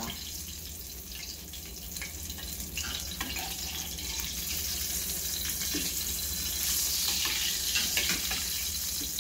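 Cornmeal-dredged porgy fillet frying in shallow oil in a stainless skillet, a steady sizzle that grows louder over the second half. A few light scrapes and taps come from a metal spatula moving the fish.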